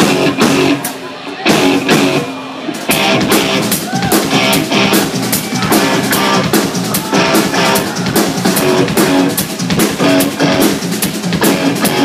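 Live hard rock band playing an instrumental passage: a drum kit keeping a driving beat with cymbals, under electric guitar and bass. The low end drops away briefly about a second and a half in, and the full band comes back in about three seconds in.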